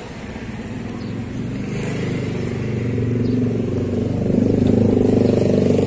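A motor vehicle engine running steadily, growing louder over the first few seconds and then holding level.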